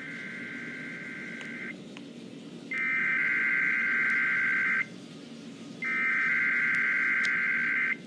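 NOAA Weather Radio SAME digital alert header, three bursts of harsh buzzy data tones, each about two seconds long with a second's pause between, the first softer than the other two, played through a phone's speaker. It is the coded header that opens a Required Weekly Test broadcast.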